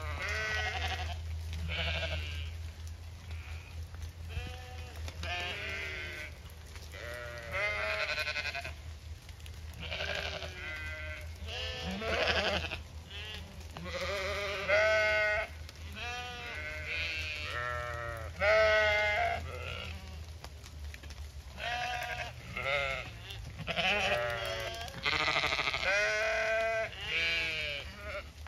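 A flock of Zwartbles ewes bleating again and again, many wavering calls one after another and sometimes overlapping, as they call for their feed.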